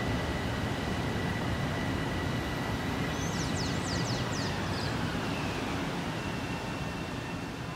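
Steady low rumble of trains and city traffic, easing off slightly toward the end, with a brief cluster of short high chirps a little past the middle.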